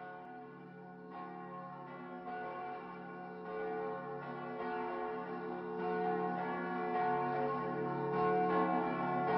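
Church bells tolling, a new stroke a little more than once a second, each ringing on into the next so that the tones overlap. The ringing swells gradually louder.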